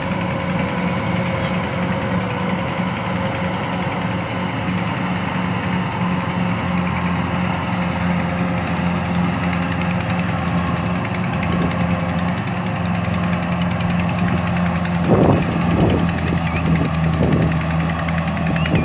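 An engine running steadily at an even pitch, with a few short louder noises a little after fifteen seconds in.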